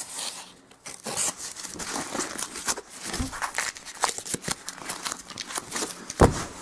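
Wrapper crinkling and tearing as hands work at it, a dense run of irregular crackles and rips. A dull thump about six seconds in is the loudest sound.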